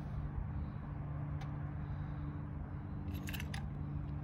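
Steady low machine hum, with a short run of sharp clicks about three seconds in.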